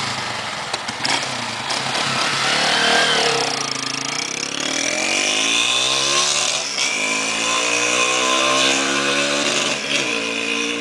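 Engine revved repeatedly through a Roncar Turbo aftermarket exhaust, a crackle-type ('estraladinho') muffler. The pitch climbs and falls several times, with a few sharp pops about a second in.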